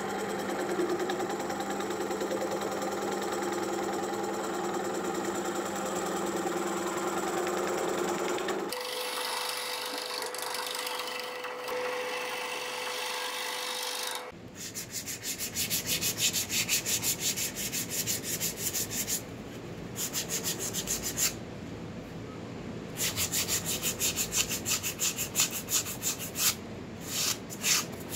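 Wood lathe spinning a plum-wood bowl while a gouge cuts into it, a steady hum with scraping. From about 14 seconds in, sandpaper is rubbed back and forth by hand over the bowl in quick, even strokes, stopping briefly twice.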